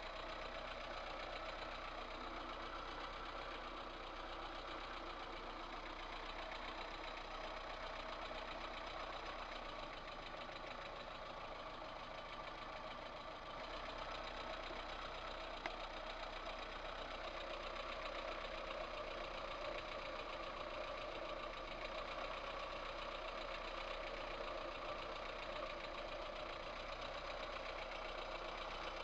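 VAZ 2108 1.3-litre four-cylinder petrol engine idling steadily with a knock. The owner traced this knock in the cylinder head to two valves with large play in their guides.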